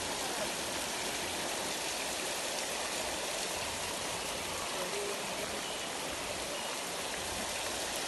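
Manoa Falls, a thin waterfall, pouring down a rock face into a shallow pool: a steady, even rush of falling and splashing water.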